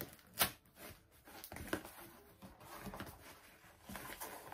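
Parcel packaging being rustled and pulled at by hand while someone struggles to get it open, with one sharp crack about half a second in and smaller crinkles and clicks after.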